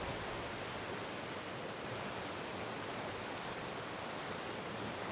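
Rushing mountain stream: a steady, even hiss of flowing water.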